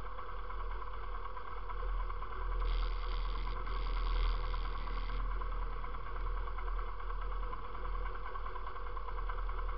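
ATV engine idling steadily, with a brief two-part hiss about three seconds in that lasts about two seconds.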